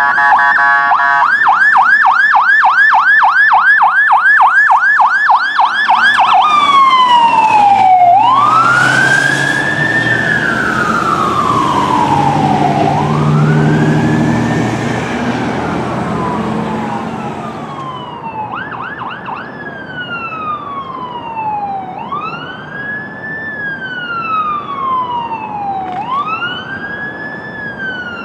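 Electronic sirens of fire department medic squad trucks. The first runs a fast yelp and switches about six seconds in to a slow wail, with the truck's engine and road noise as it passes, then fades. Another squad's siren comes in near the middle with a brief yelp and settles into a wail that rises quickly and falls slowly, about every four seconds.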